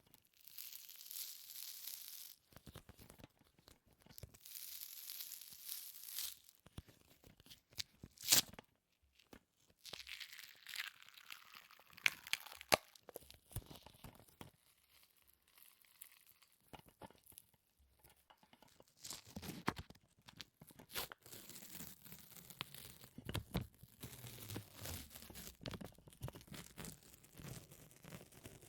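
Close-miked sticky peeling and crackling: something tacky pulled apart again and again in stretches of a second or two, with many sharp clicks and brief pauses between.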